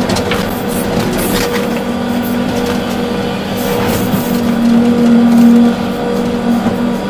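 Volvo EC380D excavator heard from inside the cab: its diesel engine and hydraulics running with a steady drone and whine. It swells louder for about a second two-thirds of the way through, then drops back, with a few faint knocks near the start.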